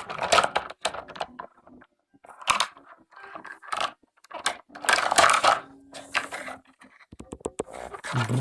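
Plastic toy vehicles clattering and scraping as they are handled, in several short bursts of rattles and knocks with brief pauses between.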